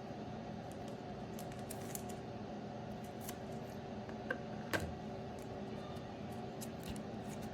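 Steady low hum of the room with a few light clicks and faint rustles as trading cards in plastic holders are handled. The clearest click comes a little past the middle.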